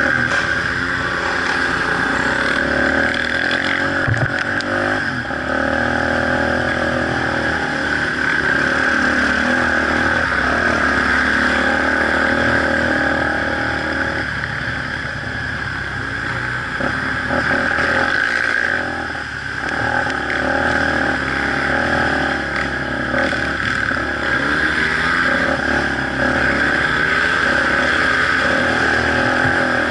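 Off-road vehicle engine running continuously as it drives a rough dirt trail, its pitch rising and falling with the throttle and dipping briefly a little past halfway.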